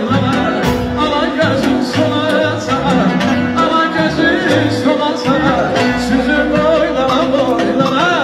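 Live Azerbaijani ashiq music: a saz played over garmon and keyboard accompaniment, with a wavering, highly ornamented melody line on top and a steady low pulse underneath.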